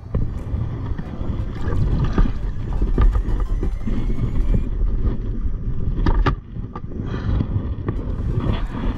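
Steady low rumble of wind on the microphone and water against a kayak hull under way, with a few sharp knocks about two seconds in and again around six seconds.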